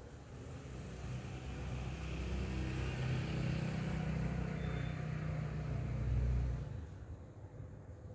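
A motor vehicle driving past, its engine and tyre noise swelling over a few seconds, then falling away sharply about seven seconds in.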